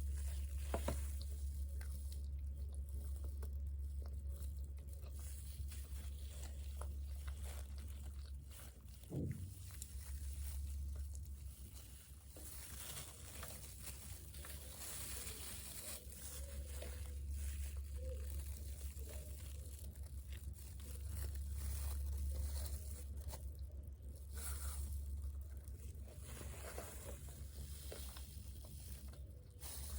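Close-miked chewing and crunching of crispy fried chicken and fries: irregular crackles and bites over a steady low hum.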